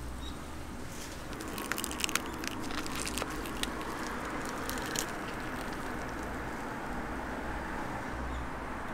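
Crisp crust of a fish-shaped bungeoppang crackling in a quick cluster of small snaps as gloved hands tear it open, about a second in, with one more snap a little later. A steady low rumble runs underneath.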